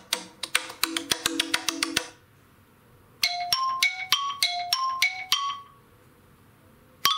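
iPhone stock ringtones played one after another. A fast run of repeated notes ends about two seconds in. After a pause comes a short phrase of about six notes alternating between two pitches, and a different ringtone starts just before the end.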